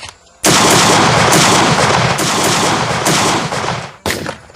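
A long burst of rapid automatic gunfire sound effects lasting about three and a half seconds, then a single shot near the end.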